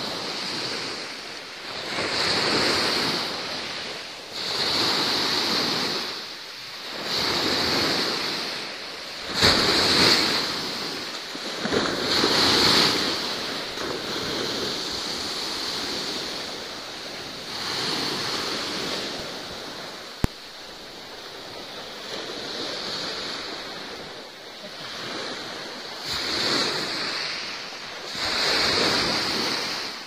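Sea waves washing in repeated surges, swelling and fading about every two to three seconds. There is a single sharp click about twenty seconds in.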